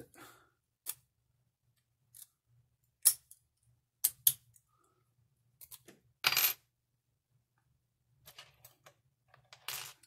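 Scattered sharp metallic clicks and clinks of a laminated steel padlock and lock picks being handled, with a longer rattle about six seconds in.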